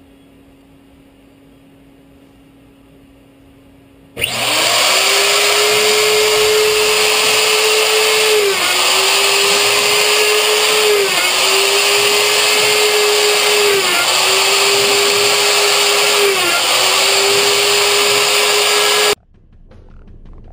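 CNC router spindle cutting aluminium: a loud, steady, high-pitched whine with a hiss of cutting noise. It starts suddenly about four seconds in, dips briefly in pitch about every two and a half seconds, and cuts off suddenly near the end.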